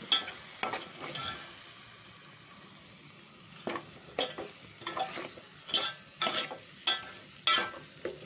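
Metal spoon stirring potatoes and onions frying in spice masala in a metal pot, with a steady sizzle underneath. The spoon knocks and scrapes against the pot a few times at the start, then quickly and repeatedly through the second half.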